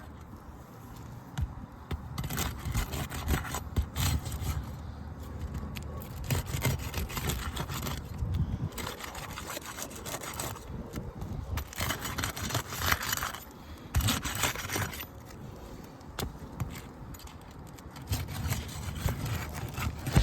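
Irregular scraping and rubbing with scattered clicks as 3-tab asphalt roof shingles are worked loose from the shingles around them, to be lifted for pulling their nails.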